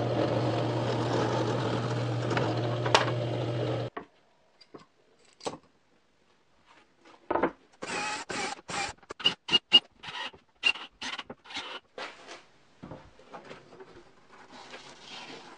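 A drill press runs steadily with a low hum, boring into a wood block, and cuts off sharply about four seconds in. After a pause, a cordless drill whirs in about a dozen short bursts into a board, some with a high whine.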